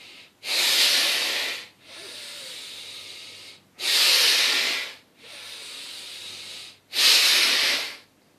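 A man doing bhastrika pranayama: three loud, hissing, forceful exhalations about a second each, with quieter, longer inhalations between them.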